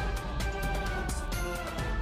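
Background music with a melody over a steady beat.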